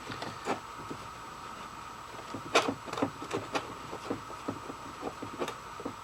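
A metal switch plate being rubbed by hand with a jeweler's cloth, giving irregular short rubs and light knocks. The loudest knock comes about two and a half seconds in, over a steady hum.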